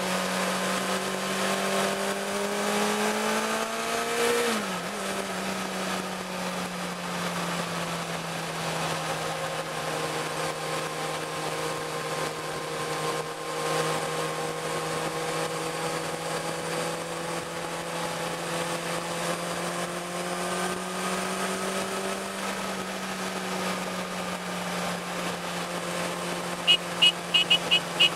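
Sport motorcycle engine running at steady cruising revs, climbing slightly and then dropping sharply about four seconds in, as on a gear change or throttle lift, before holding steady again. Near the end a horn sounds in a quick run of short beeps.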